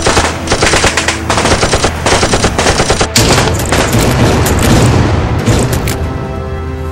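Bursts of rapid automatic gunfire, a film gunfire sound effect laid over an airsoft shootout, thinning out near the end.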